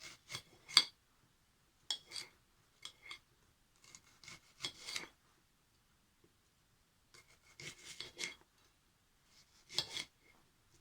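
Kitchen knife slicing through a red onion, in several short bursts of cutting strokes separated by pauses.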